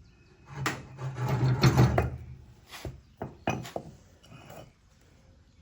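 Metal parts of a finish mower's wheel assembly scraping and knocking as the wheel is worked off its shaft: a knock, about a second of rough scraping, then a few separate clunks.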